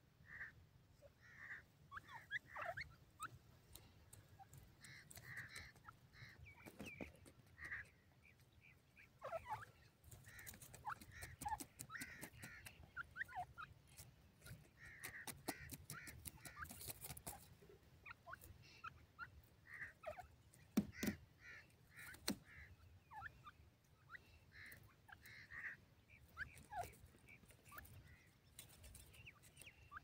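Iranian teetar partridges giving short, repeated calls in clusters of a few notes, with scattered sharp clicks in between.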